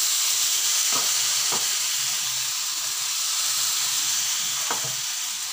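Thin rava dosa batter sizzling as it is poured onto a hot nonstick pan with onions, a steady hiss with a few faint taps.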